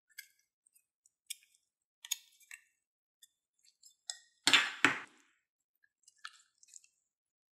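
Red clear slime being pressed and squeezed by fingers, giving scattered sticky clicks and crackles, with two louder squelching pops about halfway through as it is pulled from its tub and squeezed.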